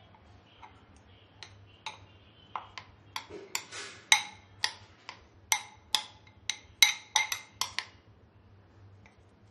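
A spoon clinking and tapping against the batter bowl and the cake tin as dhokla batter is scraped and poured across: about twenty sharp, ringing clicks, a few at first and then coming quickly from about three seconds in, with a soft scrape near the middle.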